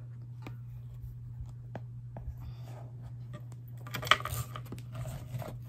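Small clicks, taps and scraping from a cardboard package being handled and opened by hand, with a brief crinkling scrape and one sharp click about four seconds in, over a steady low hum.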